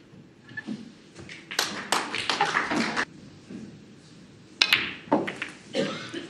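Snooker balls clicking: the cue tip striking the cue ball and balls knocking together, a handful of sharp separate clicks with the crispest about two-thirds of the way through.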